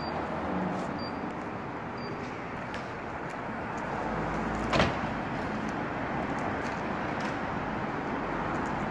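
Steady city street noise with distant traffic, and a single sharp knock about five seconds in.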